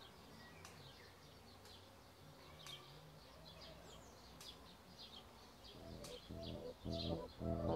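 Faint outdoor birdsong, with short high chirps scattered throughout. About six seconds in, a low pulsing beat fades in and grows louder: the start of background music.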